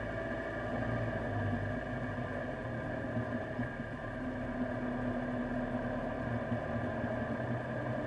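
KTM X-Bow's turbocharged four-cylinder engine running at low, steady revs as the car rolls slowly along.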